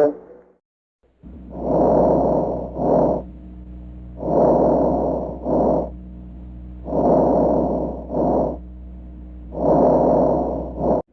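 Lung breath sounds as heard on auscultation: four breaths, each a longer noisy phase followed by a short one, repeating about every two and a half seconds over a steady low hum.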